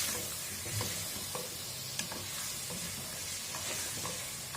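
Zucchini and tomato paste sizzling in oil in a pot while being stirred, with a spoon clicking against the pot now and then.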